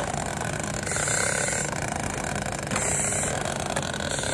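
Firefighter breathing through an SCBA mask: the demand regulator hisses on each breath, about every one and a half to two seconds, over a steady low hum.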